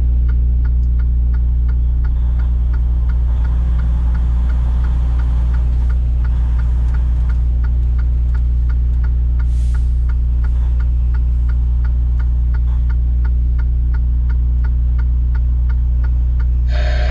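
Semi-truck engine idling with a steady low hum, heard from inside the cab, under the fast, even clicking of the turn signal. A short tone sounds just before the end.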